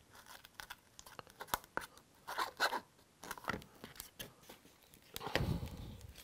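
Plastic spatula and scraper working a thick two-part epoxy wood-repair paste on a plastic mixing board, in short irregular scraping strokes that are strongest about five seconds in.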